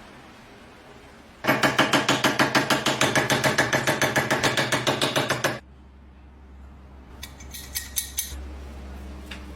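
Rapid, regular metallic strokes or rattling, about six a second, starting abruptly about a second and a half in and stopping just as abruptly some four seconds later, over a low hum. A few light clicks follow.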